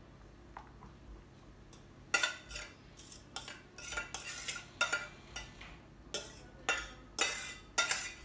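Metal mixing bowl being scraped and knocked as shredded cabbage-and-carrot slaw is emptied from it into a plastic container. It is quiet for about two seconds, then comes a run of about a dozen short scrapes and clanks.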